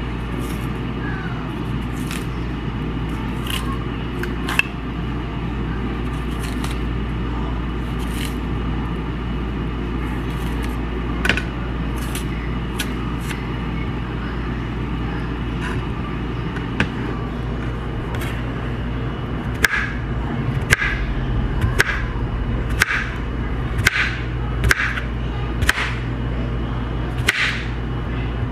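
Knife peeling green bananas, with a few scattered scrapes and clicks, then, about two-thirds of the way in, a kitchen knife slicing peeled green bananas on a plastic cutting board, roughly one chop a second. A steady low hum runs underneath.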